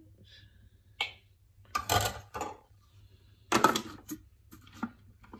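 Grey plastic lid of a Thermomix being set on the steel mixing bowl and locked into place, giving a few sharp clicks and clatters with quiet gaps between them.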